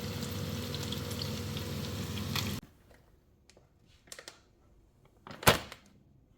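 Water running steadily from a kitchen tap, shut off abruptly about two and a half seconds in. A few faint clicks follow, then a single sharp knock near the end.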